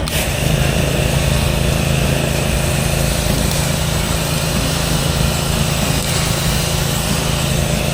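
Small engine of a pressure-washing rig running steadily, with the hiss of water spray over it.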